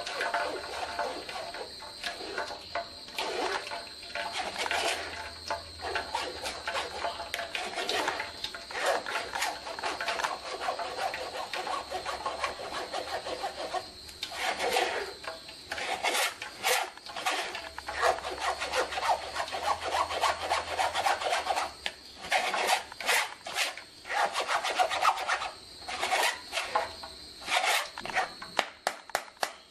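A spoon scraping and stirring pineapple pulp against the mesh of a plastic sieve in quick, irregular strokes while straining the juice.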